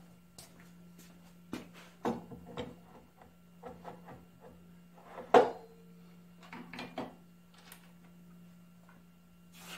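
Clanks and knocks of a small metal belt pulley and hand tools being set down and moved about on a workbench. The loudest clank comes about five seconds in and rings briefly. A steady low hum runs underneath.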